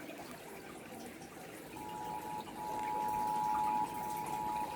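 A faint noisy hiss, then about two seconds in the Emergency Alert System attention signal starts: the steady two-tone 853 Hz and 960 Hz alert tone, held on through the rest.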